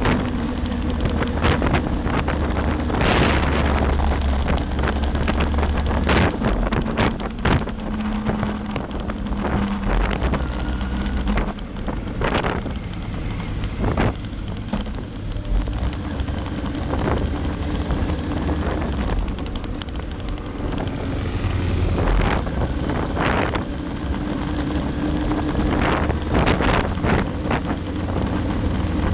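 Motorcycle engine running at road speed, its pitch shifting now and then, under heavy wind buffeting on the microphone.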